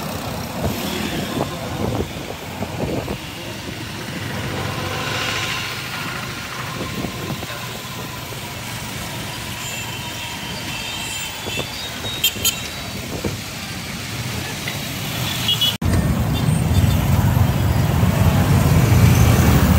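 City street traffic: vehicles passing and engines running, a steady mix of road noise with a few short sharp sounds. About 16 s in the sound cuts briefly, and a louder low engine rumble follows.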